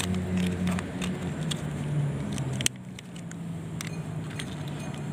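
Light clicks and rattles of plastic toy vehicles being handled and set down on gravel, over a low steady hum that cuts off abruptly a little under three seconds in.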